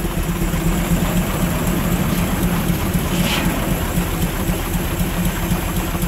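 Steam-engine-driven sawmill running: a steady mechanical hum from the Frick 8x10 engine and the mill, with a brief hiss about three seconds in.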